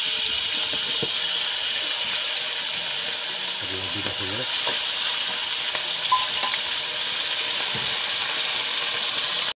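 Canned sardines in tomato sauce and sliced onion sizzling steadily as they fry in a hot wok, with a metal spatula knocking and scraping against the pan now and then.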